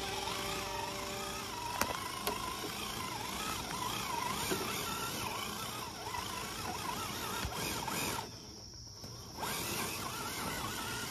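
Electric motor and gear drive of an RC rock crawler, an Axial SCX10 III, whining as it crawls over terrain. The whine wavers up and down in pitch as the throttle changes, and it briefly goes duller about eight seconds in.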